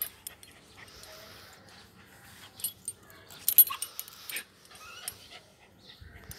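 Samoyed puppy's metal chain leash clinking and rattling in scattered bursts, busiest about three and a half seconds in. The puppy gives a couple of brief, faint whines.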